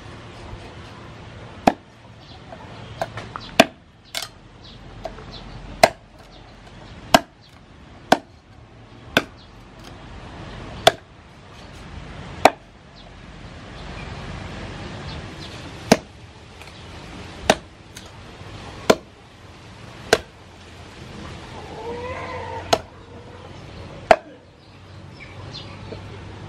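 Meat cleaver chopping pork leg into pieces on a thick round wooden chopping board: single sharp chops about one to two seconds apart, some sixteen in all.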